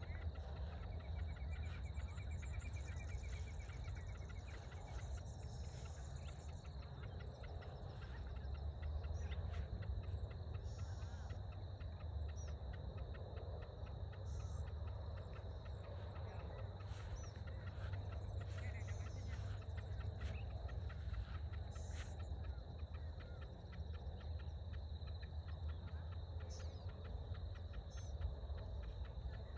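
Crickets and other insects calling in a steady chorus: a fast, even ticking and a thin high whine that hold through the whole stretch. A few short bird calls sound over it, with a low rumble on the microphone underneath.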